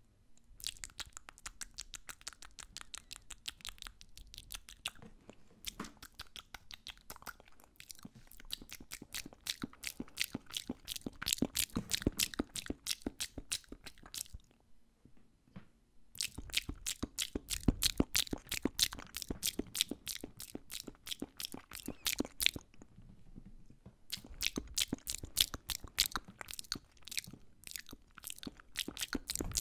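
Close-miked wet mouth sounds for ASMR 'ear eating': rapid lip smacks and tongue clicks, several to the second, in long runs broken by two short pauses, about halfway through and again about three-quarters through.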